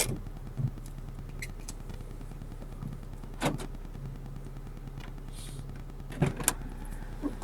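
A 70mai Dashcam Pro's own microphone picking up a steady low hum, the "ticking/helicopter noise" that appears in its recordings when its wifi is turned on, likely electrical interference. A few sharp knocks stand out on top, at the start, about three and a half seconds in, and twice close together near the end.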